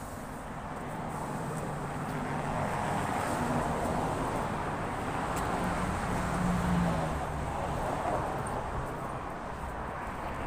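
Road traffic: a vehicle passes on the avenue, its tyre and engine noise swelling for several seconds, loudest a little past the middle with a low engine hum, then easing off.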